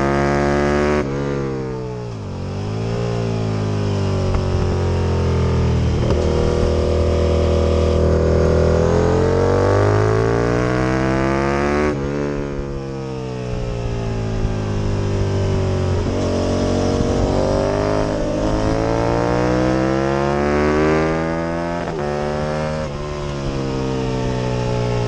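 Aprilia RSV Mille V-twin racing motorcycle engine at high revs, climbing in long rising sweeps under acceleration. Its pitch drops off sharply about a second in, at about twelve seconds and again near twenty-one seconds, as the throttle is closed and it changes down for corners.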